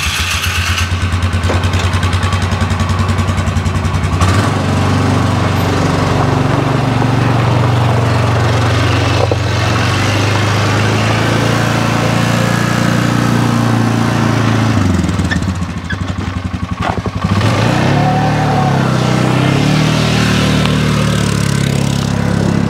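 Polaris ATV engine running while it tows a loaded firewood cart: it idles steadily for about four seconds, then its pitch rises and falls as it drives off, easing off briefly about two-thirds through before revving up again.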